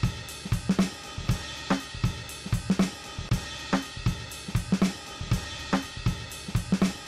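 Background music: a drum kit playing a steady beat of kick drum, snare and hi-hat or cymbals, with no other instruments yet.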